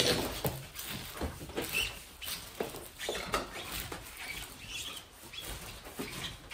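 Irregular scraping, rustling and light knocks of hand work, with no motor running; the loudest knock comes right at the start.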